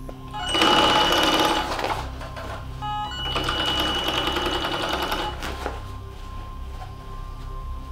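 Union Special 43200G roll-feed chain-stitch hemming machine, dating from 1957, stitching a denim jeans hem. It runs in two stretches of a second or two each, stopping and starting between them, with a brief third spurt near the end.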